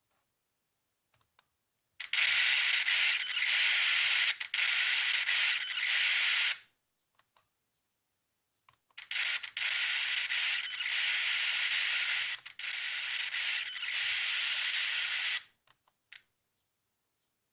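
Gateway T-1631 laptop's speakers blasting loud static hiss with crackles, in two long bursts of about four and six seconds: an audio fault that appears when the laptop wakes from sleep mode.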